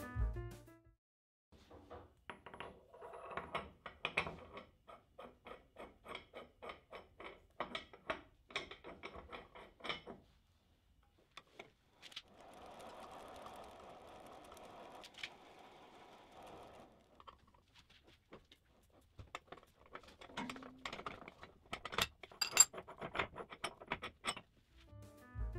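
Steel parts clicking and clinking as a tapered steel sleeve is handled and fitted into the nose of a milling-machine spindle, with a run of evenly spaced ticks in the first half and a sharp clink near the end. In the middle there are about four seconds of steady rushing noise.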